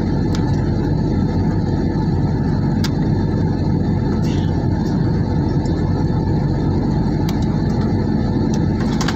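Steady in-flight cabin noise of a jet airliner heard from a window seat beside the engine. It is a constant low rumble of turbofan engine and rushing airflow that does not change in level.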